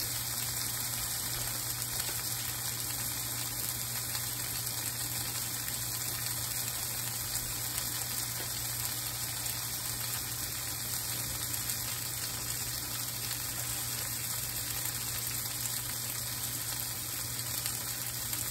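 Yellow squash and onions frying in oil in a cast iron skillet: a steady sizzle.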